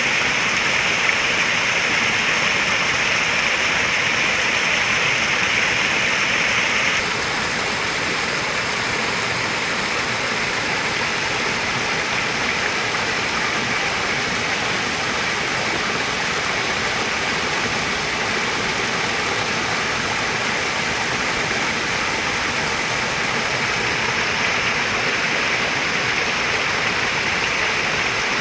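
Steady rushing of flowing water at a koi pond, an even splashing hiss; about seven seconds in it abruptly becomes a little quieter and less bright.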